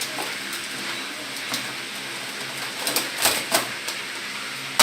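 Objects being handled: a few light knocks and clicks, with a small cluster about three seconds in and a sharper knock at the end, over a faint steady hum.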